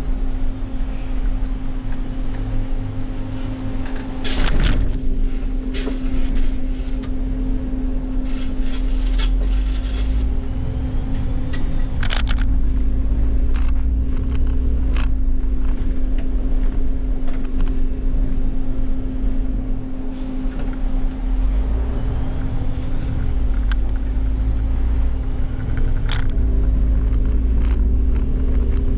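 Irisbus Cityclass city bus with an Iveco Cursor natural-gas (CNG) engine, heard from the driver's seat while under way: a low engine drone with a steady whine over it. Scattered short rattles and knocks from the bus body.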